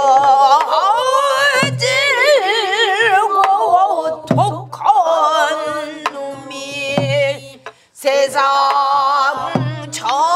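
A woman singing pansori in a wavering voice with heavy vibrato, sliding between held notes. A buk barrel drum marks the rhythm with a dull stroke about every two and a half seconds.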